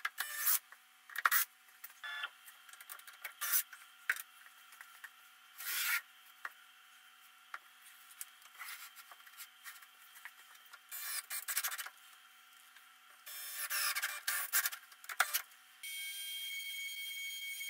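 Scattered knocks, clicks and short rubbing sounds of the workpiece being handled and screwed down on the CNC bed. About sixteen seconds in, the CNC router's spindle starts up and runs with a steady high-pitched whine, not yet cutting.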